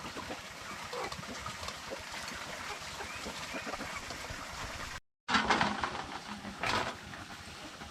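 Ducks quacking, with a brief dropout to silence about five seconds in, followed by a couple of louder bursts of quacking.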